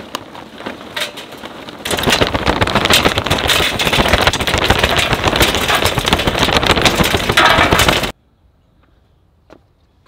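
Lump charcoal poured from its bag into a steel chimney starter: a dense clatter of chunks rattling against the metal and each other. It starts lighter, grows loud about two seconds in, and cuts off suddenly near the end.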